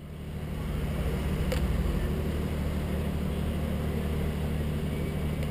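Steady low mechanical hum under outdoor street noise, fading in over the first second, with one sharp click about a second and a half in.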